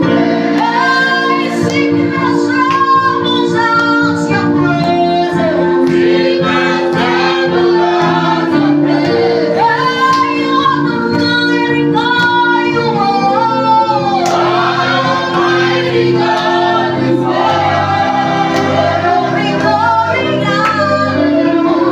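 Gospel praise-and-worship singing: a group of voices with women prominent, sung over held instrumental notes in a steady, unbroken flow.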